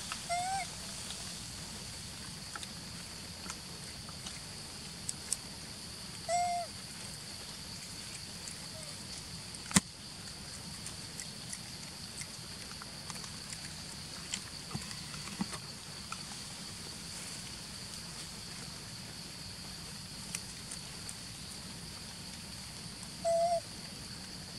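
Steady high-pitched outdoor drone with three short tonal animal calls, one about half a second in, one at about six seconds and one near the end. A single sharp click comes near ten seconds.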